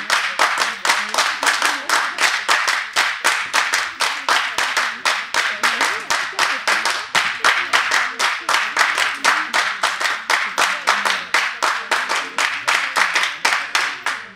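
A group of performers clapping their hands in unison in a fast, even rhythm, which stops abruptly near the end.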